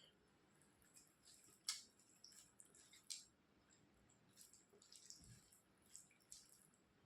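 Faint, scattered wet clicks and smacks of kadhi chawal (yogurt curry with rice) being eaten, with two sharper clicks about a second and a half and three seconds in.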